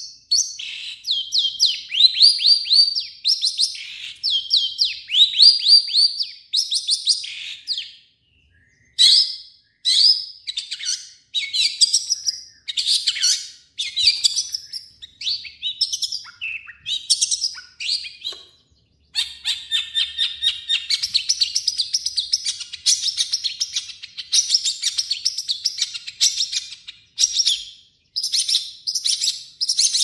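Long-tailed shrike (cendet) singing a varied song of quick, scratchy, high phrases, each a rapid run of falling notes, repeated with short pauses. About two-thirds of the way in it breaks into several seconds of continuous fast chatter.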